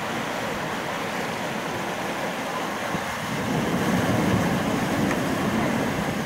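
Turbulent tidal rapids rushing as a steady noise of churning whitewater, growing louder about three and a half seconds in.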